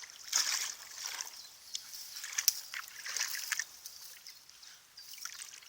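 Water splashing and sloshing in irregular bursts as a French bulldog wades into the river.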